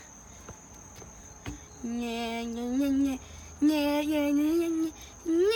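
A person singing a tune in long held notes with a wavering pitch, three notes in all, the last one gliding upward near the end. A thin steady high-pitched whine sits underneath throughout.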